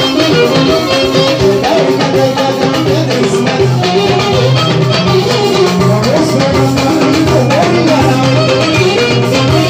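Live band music: a drum kit and a hand drum keep a steady beat under melodic instruments, playing continuously.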